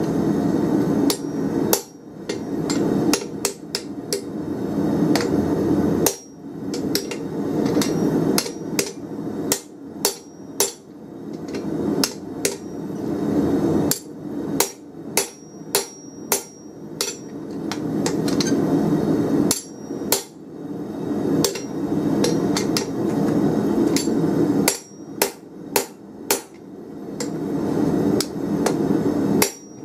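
Hand hammer striking a spring fuller on an anvil to fuller a red-hot 24 mm round steel bar: many sharp metallic strikes, often in quick runs, over a low rushing noise that swells and breaks off every few seconds.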